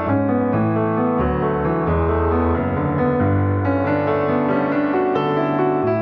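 Background music led by piano, a steady run of notes over a low bass line.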